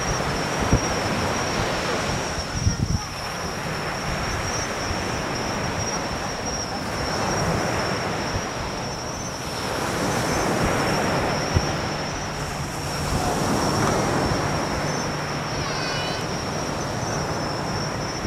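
Night outdoor ambience at a fireworks viewing site with no bursts: a steady wash of noise that swells and fades every few seconds, under a constant high-pitched trill, with a few short sharp clicks.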